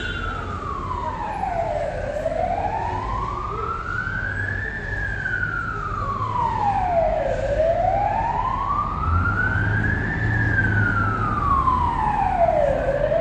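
Emergency vehicle siren in a slow wail, its pitch rising and falling about every five and a half seconds, growing louder.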